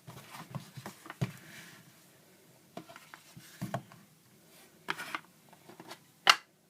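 Metal Zippo lighters being handled and set down together: a scattering of short clicks and light knocks, the sharpest a little after six seconds in.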